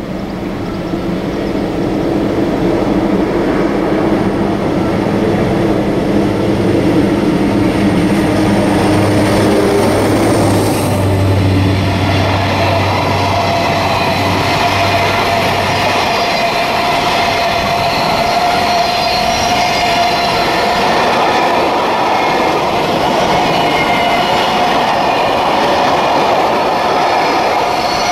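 A freight train of empty flat wagons drawn by an electric locomotive approaches and passes close by, growing louder over the first couple of seconds. The locomotive's low hum fades about halfway through, leaving the steady rumble and clatter of the wagons' wheels on the rails with a steady high tone ringing over it.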